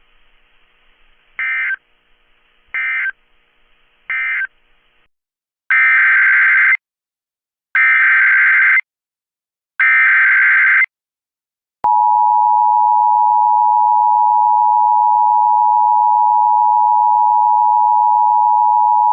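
Emergency Alert System broadcast signal. First comes faint hiss with three short chirps. Then come three loud, one-second warbling digital header bursts about two seconds apart, and about twelve seconds in the steady two-tone EAS attention signal starts and holds.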